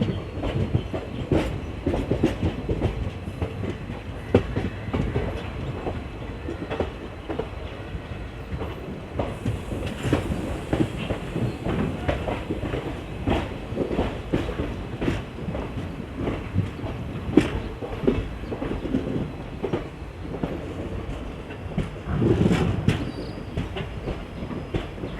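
Passenger train running on the track, its wheels clacking over rail joints at irregular intervals over a steady rumble.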